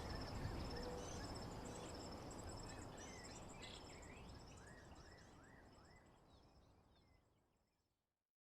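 Nature ambience of birds chirping over a steady, high insect trill, fading out gradually to silence near the end.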